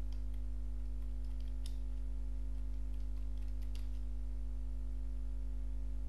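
Computer keyboard keystrokes, a scattered few faint clicks as a text prompt is typed, over a steady low electrical hum that is the loudest thing heard.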